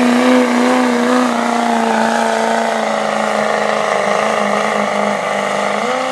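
Duramax 6.6 L turbodiesel V8 in a GMC Sierra pickup running hard under heavy load, pulling a weighted sled: a loud, steady engine drone that dips slightly in pitch about a second in and rises briefly near the end.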